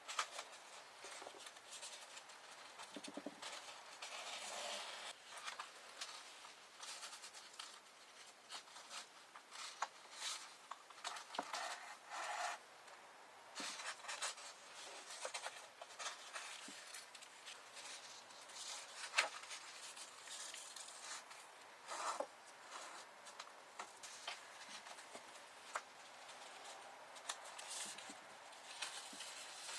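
Needle and thread being worked through the folded paper sections of a book and pulled taut around its sewing cords, with paper rustling: soft, irregular rasps, swishes and small ticks.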